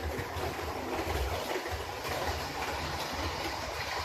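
Two HO-scale model trains running on the layout's track at once: a steady running noise from their motors and wheels on the rails, swelling slightly as they move around the circuit.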